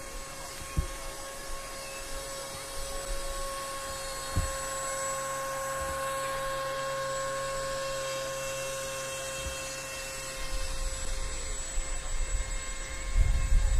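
Radio-controlled model boat's motor whining at a steady high pitch, a little louder in the middle. Two light knocks come about a second and four seconds in, and a low rumble builds near the end.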